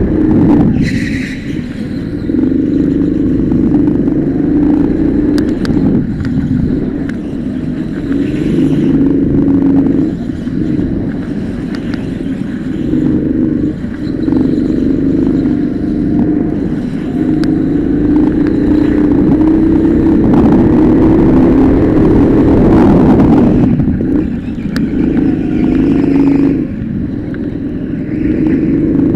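Go-kart engine running hard, heard close up from on board, its steady note dropping briefly several times as the throttle is lifted for corners and then picking up again.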